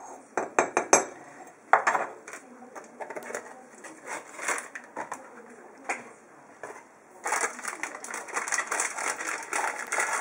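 A metal spoon clinking and scraping against a stone mortar as herbal powder is spooned into it. A few sharp clinks come about half a second in, then scattered clicks, then a dense run of rapid clicking over the last three seconds.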